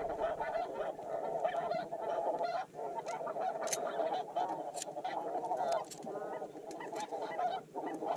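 Snow geese calling, many at once: a continuous, overlapping clamor of honks.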